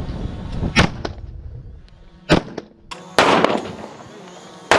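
Gunshots at irregular intervals, about six sharp reports, the loudest about three seconds in trailing off briefly.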